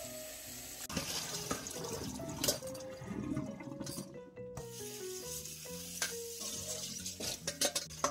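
Tap water running and splashing into a stainless steel colander of seaweed stems in a kitchen sink as hands swish and rinse them, under light background music.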